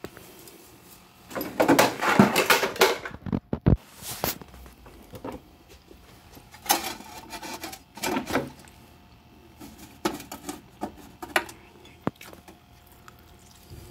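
Handling noise: irregular bumps, rustles and clatters as objects are moved about on a table, the loudest stretch about two seconds in, with quiet room tone between.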